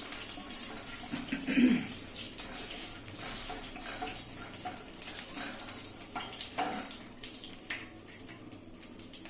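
Mustard oil sizzling as it heats in a kadai on a gas burner, with a wooden spatula stirring it and knocking against the pan now and then; the spatula knocks stop near the end.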